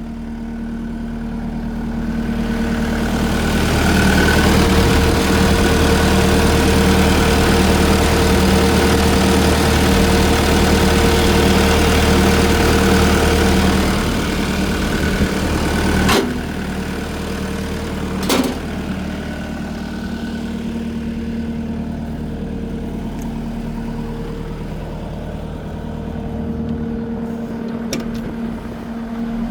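Case SV280B skid steer's four-cylinder turbocharged diesel running: the engine speed comes up over the first few seconds, holds steady, then drops back to a lower idle about halfway through. Two sharp knocks a couple of seconds apart follow the drop.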